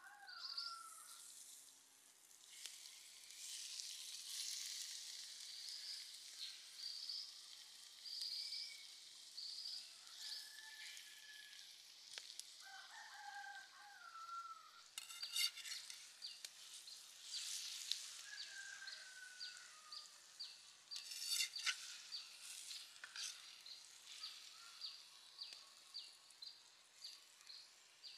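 Squid sizzling faintly on a hot stone slab over a wood fire, with birds calling: many short high chirps repeating in a steady run through the second half, and a few lower gliding calls.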